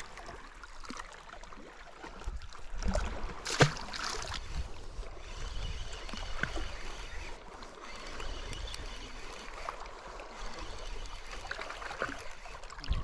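Seawater lapping on rocks, with wind on the microphone and one sharp click about three and a half seconds in. A spinning reel is being wound in, giving a faint whir in the middle.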